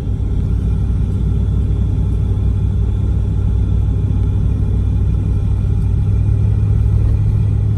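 Steady low rumble of a car driving, a constant drone of engine and tyres with no sudden events.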